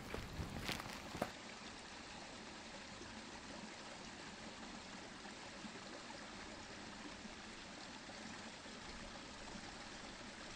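A few footsteps on rough ground in the first second or so, then the steady, faint rush of a stream running.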